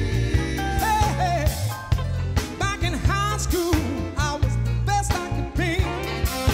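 A funk-soul band playing live, with bass and drums holding a steady groove under organ and horns. The lead singer's voice sings over it, with no clear words.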